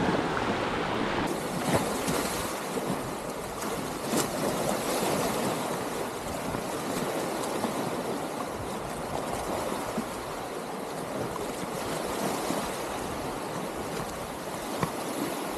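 Small waves washing and lapping onto a sandy beach: a steady wash of water noise with a few faint clicks.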